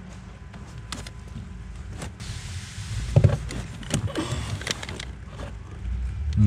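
Makita 18V cordless drill's motor whirring in short bursts about three and four seconds in, with knocks and rustles as the drill is handled against the firewall.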